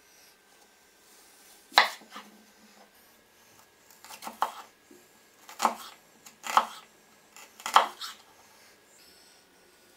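Kitchen knife cutting through a peeled onion and knocking on a wooden cutting board: five sharp knocks at uneven intervals.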